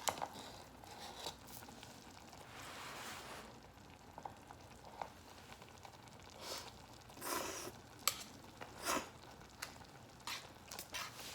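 Someone eating hot kimchi stew: scattered short slurps and clicks, with a breathy hiss lasting about a second a couple of seconds in.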